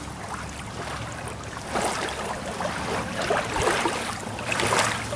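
Shoreline ambience on the camera microphone: a steady low rumble under a noisy wash of water sound.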